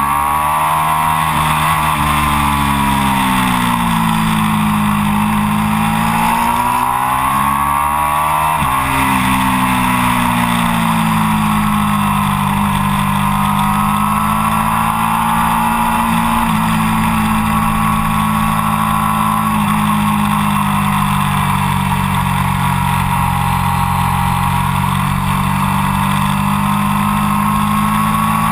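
Triumph Daytona 675's three-cylinder engine, with an Arrow exhaust, at high revs on track, heard from a camera mounted on the bike. Its pitch rises and falls, with a sudden jump about nine seconds in, and is then held high and fairly steady, under constant wind rush.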